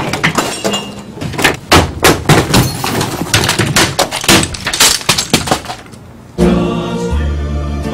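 Office equipment and desk items crashing, clattering and breaking as they are swept off desks and thrown to the floor: a rapid run of bangs and smashes lasting about six seconds. Music with held chords starts again near the end.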